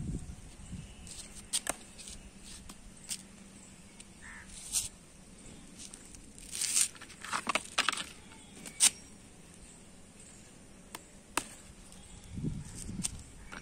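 Handling noise: scattered sharp clicks, with a few short rustles a little past the middle, as the plant and the phone are handled.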